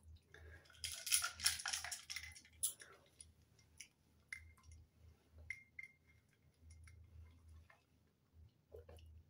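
Ice cubes clinking in a cup of iced drink: a quick flurry of clinks in the first three seconds, then a few single clinks, some of which ring briefly.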